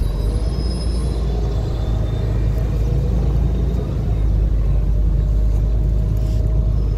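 Open-top tour bus under way, heard from its open upper deck: a loud, steady low rumble of engine, road and wind.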